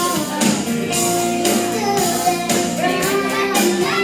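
A young girl singing karaoke into a microphone, her voice amplified over a pop-rock backing track with a steady drum beat.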